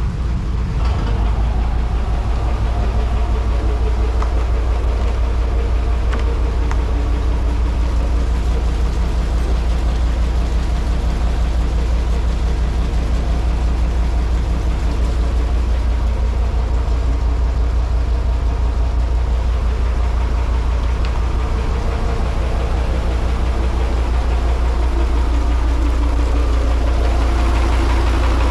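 An engine idling steadily, deep and evenly pulsing.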